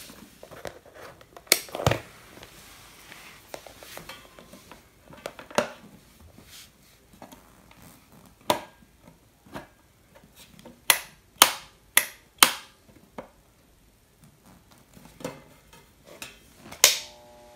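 Scattered clicks and taps of multimeter test probes and leads being handled against a step-down transformer's output socket. Near the end a louder click, followed at once by a steady hum as the transformer comes on.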